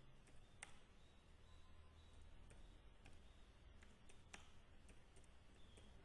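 Near silence with a few faint, sparse clicks of computer keyboard keys as a word is typed, the clearest about half a second in and again past the four-second mark.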